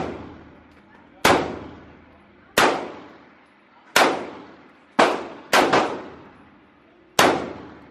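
Handgun shots on an indoor range: seven shots spaced about a second apart, with a quick pair near the middle. Each shot has a reverberant tail off the range walls.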